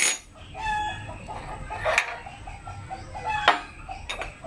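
Chickens clucking in short calls every second or so. Three sharp metal clinks of a wrench and pivot bolt on a dirt bike's rear suspension linkage come at the start, about two seconds in and about three and a half seconds in.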